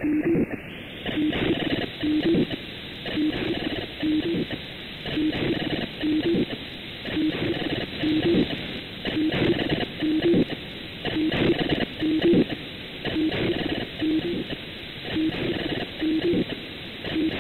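Unidentified digital data-mode signal on 440.930 MHz, demodulated by an SDR receiver: a harsh, buzzy data burst repeats about once a second over steady receiver static. About a second in, the hiss gets brighter as the receive bandwidth is widened.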